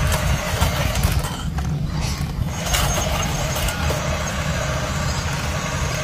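Steady, low diesel-like engine rumble from a radio-controlled model wheel loader as it drives through dirt.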